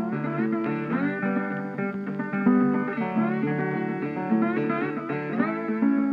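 Background music: an acoustic guitar picking notes with slides.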